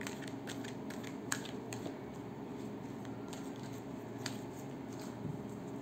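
Deck of oracle cards being shuffled by hand: a quick run of light card snaps and clicks in the first couple of seconds, then another single click about four seconds in, over a steady low room hum.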